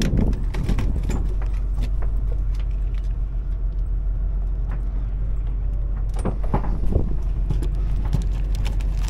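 Steady low rumble of the party boat's engine, with light metal clinks and rattles of fishing tackle being handled, including jigs in a bucket.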